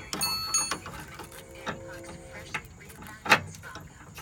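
Metal hand tools clinking and clicking against a stabilizer bar link. There is a sharp click with a brief metallic ring right at the start and another sharp click near the end.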